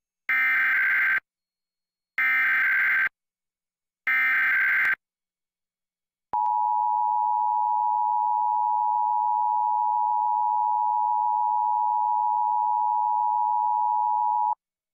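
Emergency Alert System broadcast test: three short, equal bursts of buzzing digital header data, each about a second long with a second's gap, then, about six seconds in, the EAS attention signal, a steady two-tone alarm held for about eight seconds before it cuts off.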